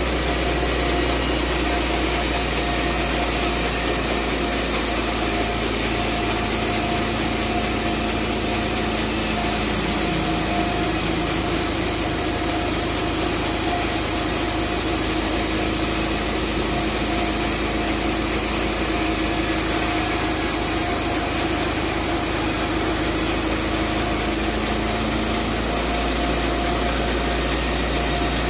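Sawmill band saw running steadily, cutting timber with a continuous machine hum. The pitch of the hum shifts about ten seconds in and shifts back near the end.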